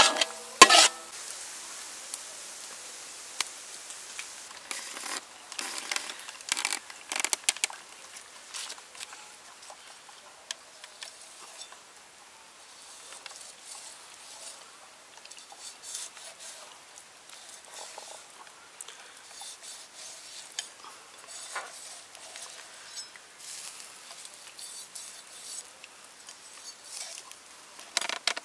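A spatula scraping and stirring a sauce frying in a metal pan, loud clattering strokes at first, then scattered soft clicks and taps from handling and knife-scoring a raw chicken.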